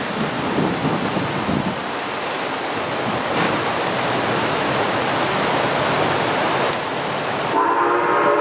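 Strong wind rushing over the microphone. About seven and a half seconds in, the Southern Pacific six-chime steam whistle of 2-8-2 locomotive #142 starts sounding as one steady chord.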